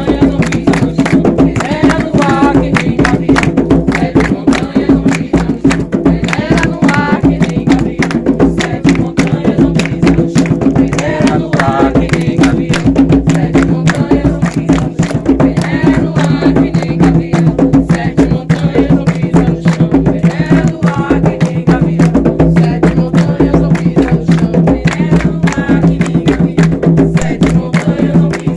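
Umbanda ritual music: dense, fast hand-drum beating, most likely atabaques, under group singing of a ponto.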